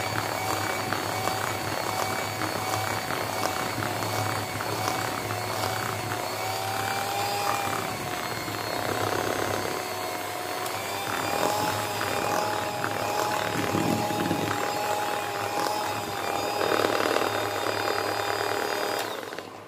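Electric hand mixer running steadily, its twin beaters whipping a thin flour-and-ghee batter in a plastic bowl. The motor whine wavers slightly in pitch and cuts off suddenly near the end.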